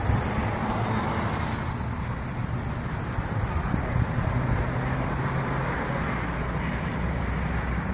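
Steady outdoor background noise picked up by a phone recording: a low rumble with a hiss and no distinct events.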